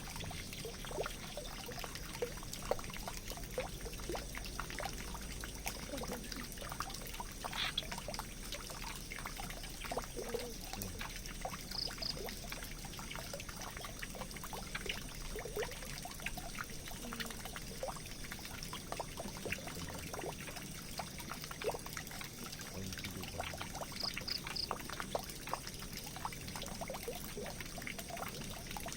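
Water pouring and trickling down a drain: a steady run of splashes and drips.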